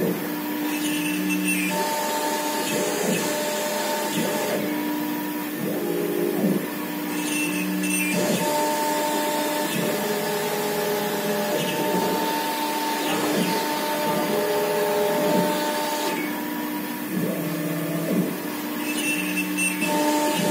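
1325 CNC router with a single 5.5 kW spindle carving a board. The spindle and cutter give a steady hiss, and the axis motors whine in steady tones that jump between pitches every second or two as the gantry changes direction. The pattern repeats about every eight seconds.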